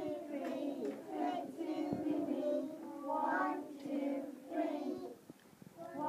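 A group of young children singing together, with a short pause between lines near the end.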